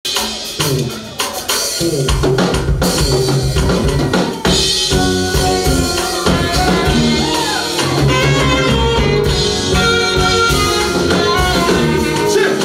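Church praise band music: a drum kit playing, with pitched instruments filling out the sound about four and a half seconds in.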